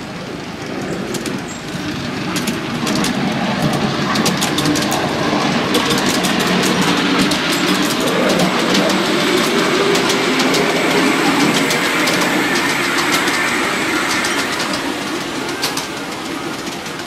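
Miniature ride-on Shinkansen train running along its track, a steady rumble with scattered clicks of the wheels over the rail joints. The rumble swells louder through the middle and eases off near the end.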